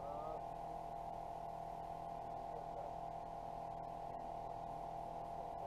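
A steady hum holding several fixed pitches, faint but constant. A faint, distant voice calls back briefly near the start and again near the end.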